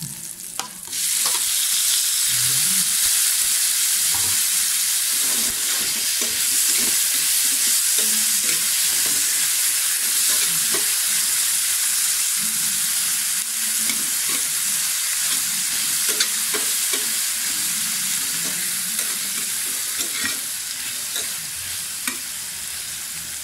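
Sliced tomatoes and onions frying in plenty of hot oil in a frying pan. The sizzle jumps up about a second in as the tomatoes go into the oil, then runs on steadily and eases a little toward the end, with a spatula scraping and tapping the pan as it stirs.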